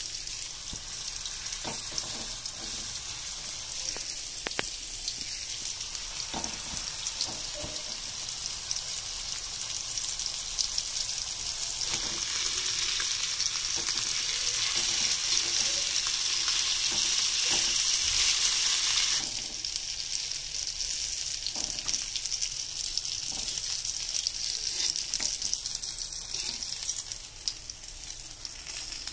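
Rice-flour-coated fish slices shallow-frying in oil on an iron tawa: a steady sizzle that grows louder for several seconds in the middle, then drops back, with occasional light clicks.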